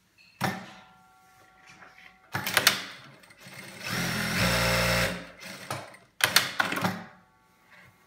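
Jack A4 industrial lockstitch sewing machine stitching in four short runs, starting and stopping; the longest and loudest run, about a second long, comes in the middle as a steady motor hum.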